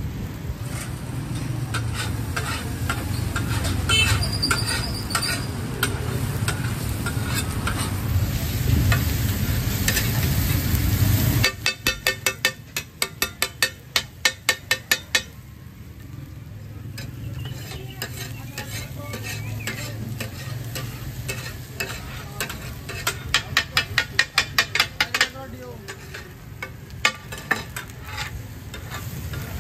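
Metal spatulas chopping and scraping egg and masala on a hot flat griddle (tawa), with food sizzling. Two runs of quick, sharp clacks come about a third and about three quarters of the way in; before them a steady low rumble of stall noise.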